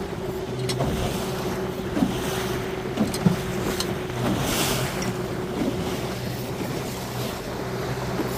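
Engine of the coach's motor boat running steadily under way through chop, with wind buffeting the microphone and waves washing and slapping against the hull; a few sharper slaps come about two and three seconds in.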